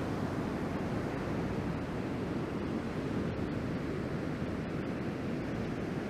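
Steady rush of ocean surf: waves breaking and whitewater washing up onto a sand beach.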